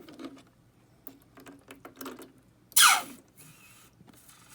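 Egg being blown out through an egg-blowing tool and hose: a few light handling clicks, then about three seconds in a short, loud squeal that falls steeply in pitch as air and the broken-up contents are forced out of the egg's hole, followed by a soft hiss of air.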